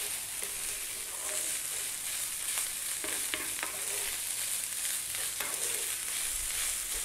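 Basmati rice with carrot and onion frying over high heat in a nonstick pan: a steady sizzle, with short scrapes and taps of a wooden spatula stirring it here and there.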